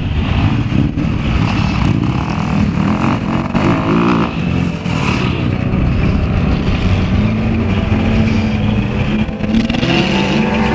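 An off-road 4x4's engine working under load on a hill climb, its pitch wavering with the throttle and rising near the end.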